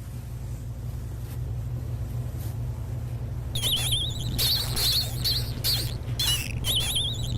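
High-pitched, warbling chirps or squeaks from a small animal, starting about halfway through and repeating in quick short calls, over a steady low rumble.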